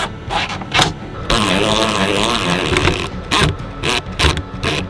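A cordless drill-driver runs for about two seconds, driving a screw into a wooden drawer front, its pitch wavering as it works. Background music with a steady beat plays before and after it.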